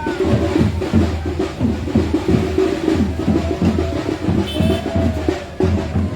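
Drums and percussion playing a dense, fast rhythm.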